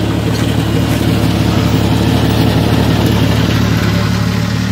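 An engine idling steadily at a constant low pitch, with no revving.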